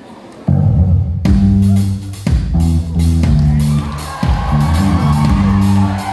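A band starts playing loudly about half a second in, with bass guitar, drums and guitar.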